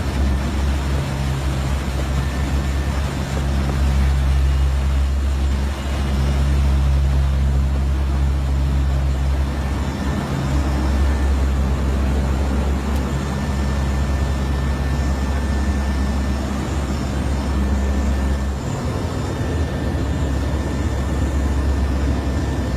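Hurricane hunter aircraft in flight, heard from inside the cabin: the steady, loud drone of its turboprop engines over rushing air noise.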